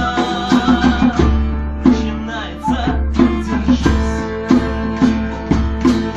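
Live acoustic music: guitar and plucked strings playing a steady, rhythmic figure.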